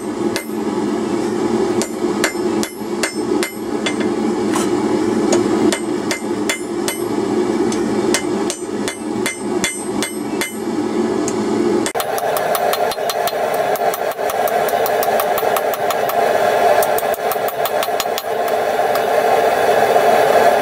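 Blacksmith's hammer striking hot twisted steel on an anvil in a run of quick, light blows, flattening and rounding the twist. A steady drone runs underneath and jumps higher in pitch about twelve seconds in.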